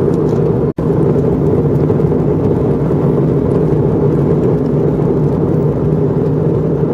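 Airliner cabin noise in flight: a steady drone of engines and rushing air, cutting out for an instant under a second in.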